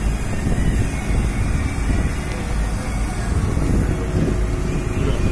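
Wind buffeting the microphone of a moving boat, over the steady running of the boat's engine and water noise.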